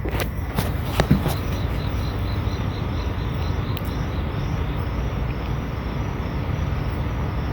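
A steady low rumble of unknown origin, with an insect chirping quickly and evenly over it and a few faint clicks in the first second or so.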